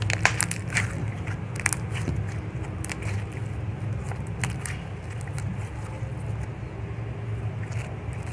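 Soft toothpaste slime being squeezed and kneaded by hand, giving off short sharp clicks and crackling pops, most of them in the first three seconds. A steady low hum runs underneath.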